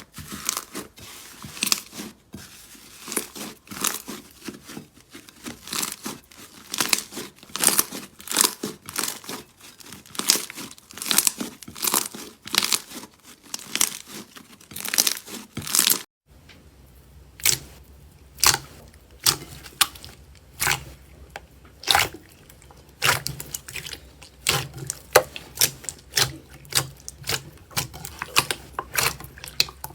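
Slime being squeezed and pressed by hand, popping and crackling with sharp clicks several times a second. About halfway through it cuts abruptly to another slime clip, where the pops go on over a low hum.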